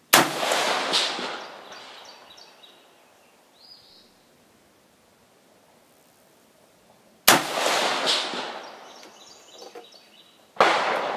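Three shots from a 5.56 AR-15 rifle: one right at the start, one about seven seconds in and one near the end, each a sharp crack that echoes away over a second or two.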